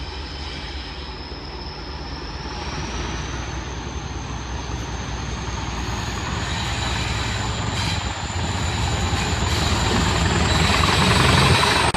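Train approaching and growing steadily louder: a rumble and rail noise build up throughout, over a thin high whine that slowly rises in pitch.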